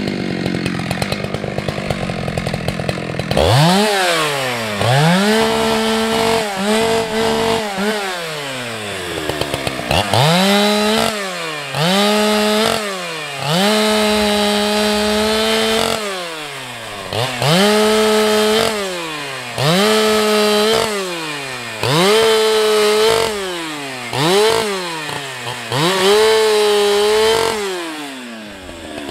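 Ported Husqvarna 365 X-Torq two-stroke chainsaw idling, then from about three seconds in revving to full throttle again and again. Each time it holds a steady high note under load as it cuts through a pine trunk, then drops back toward idle: about ten cuts in a row, bucking the trunk into rounds.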